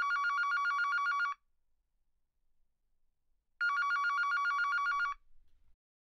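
Digital telephone ringing: an electronic trill warbling rapidly between two tones, heard as two rings about a second and a half long with a pause of about two seconds between them.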